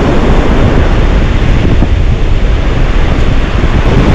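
Strong sea wind buffeting the microphone in a steady low rumble, with surf washing in behind it.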